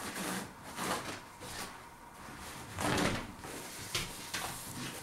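Paper napkin rustling in several short bursts as it is handled and wiped across the mouth and beard, the loudest about three seconds in.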